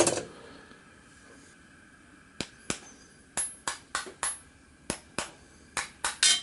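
Light hammer taps on small steel transfer punches pushed through a wooden pattern, marking the dowel-hole centres. About a dozen short, sharp taps, mostly in quick pairs, start about two and a half seconds in; the loudest comes near the end.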